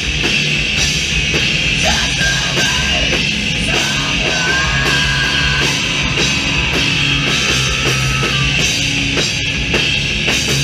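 Heavy metal band playing live: loud distorted electric guitar and bass over a drum kit keeping a steady beat.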